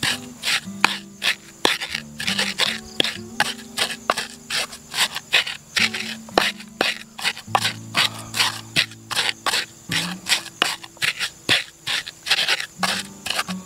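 Stone pestle grinding fresh chillies and sambal ingredients in a shallow mortar (ulekan and cobek): rhythmic crushing and scraping strokes, about three or four a second, as the ingredients are ground together into a paste.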